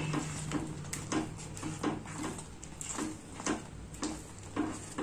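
A spatula stirring thick semiya kesari (vermicelli cooked down in sugar syrup and ghee) around a nonstick kadai: a run of short scraping strokes, about two or three a second, over a steady low hum.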